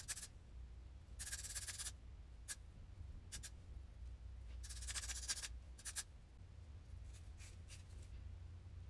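Faint scratchy rustling as hands handle the wig's hair and lace, in two short bouts with a few light clicks between.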